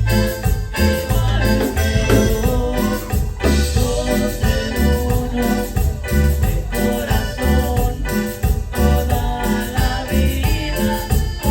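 A live band playing through its PA during a sound check, with a steady beat, a strong bass line and keyboard.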